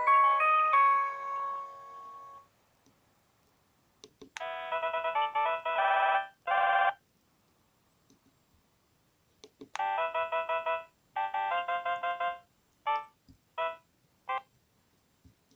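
Sony Ericsson J300 mobile phone ringtones: one electronic melody ends in a few held notes, then after a pause a quick run of electronic tones plays twice, about two and a half seconds each, followed by three short blips. Faint clicks come just before each run.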